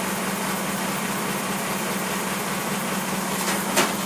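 Military jeep engine idling steadily with an even, regular pulse. A couple of sharp clicks come near the end.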